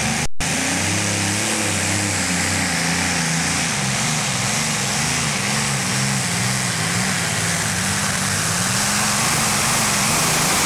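Multi-engine modified pulling tractor running flat out under load as it drags the weight-transfer sled, a dense engine roar whose pitch wavers up and down throughout. There is a very brief dropout in the sound about a third of a second in.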